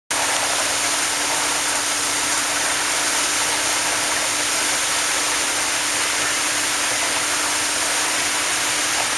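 Fire hose streams spraying water, a steady loud hiss, with a steady low hum underneath.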